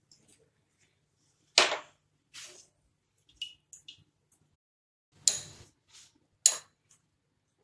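Kitchen utensils knocking and clinking against a bowl and a steel kadhai: three sharp knocks, the loudest about a second and a half in and two more near the end, with a few softer clicks between.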